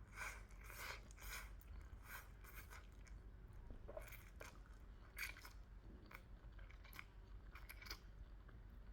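A person chewing chicken chow mein close to the microphone: soft, irregular wet mouth clicks and crunches, closest together in the first second or two.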